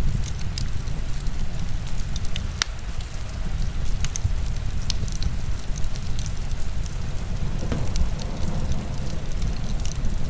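Heavy rain together with a wood fire crackling: frequent sharp pops and snaps over a steady deep rumble of rain.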